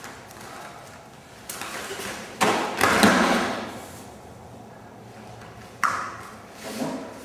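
Bodies and bare feet hitting rubber floor mats during a full-speed martial-arts takedown: a loud thud and scuffle about two and a half seconds in as a man is thrown to the mat, with smaller sharp slaps before and after.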